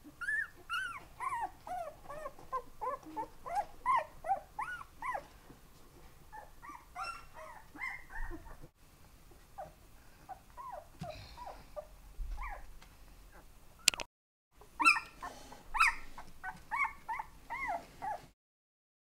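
Several young puppies whimpering and yipping: many short high calls, each rising and falling in pitch, in quick runs with brief pauses. A single sharp click sounds about two-thirds of the way through.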